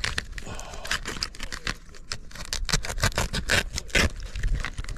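Utility knife cutting through a pleated ridge roll flashing strip: a run of short, sharp scraping and crinkling strokes.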